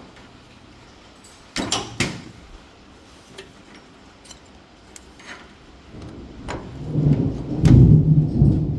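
Tools and metal parts being handled during brake-adjuster installation: two sharp clanks a couple of seconds in and a few light taps, then a louder, rough low rumble over about the last three seconds.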